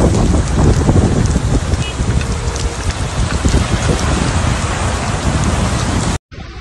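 Heavy rain pelting down, a loud dense patter and hiss. It cuts off abruptly about six seconds in, giving way to a much quieter, even hiss.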